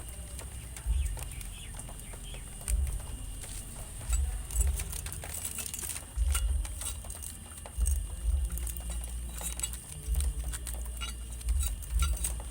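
Vegetable seeds being crushed under a glass bottle to crack their husks before sowing: irregular dull thumps with small crackling clicks.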